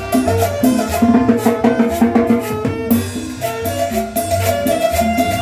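Live tropical dance music: a band playing a salsa-style groove with bass, pitched instruments and steady drums and percussion.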